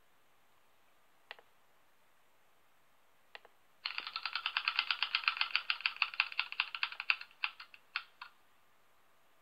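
Two single mouse clicks, then the ticking sound effect of an on-screen spinning name wheel, played through computer speakers: a fast run of ticks that slows and stops about four seconds later as the wheel comes to rest.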